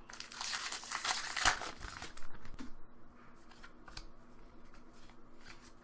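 A Pokémon trading card booster pack being torn open, with a dense crinkling rustle of the wrapper for about two seconds. Then the cards are handled, with scattered light clicks and rustles.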